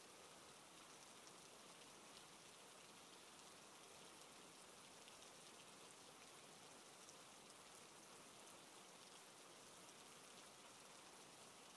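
Faint, steady rain: an even hiss of rainfall with scattered tiny ticks of drops.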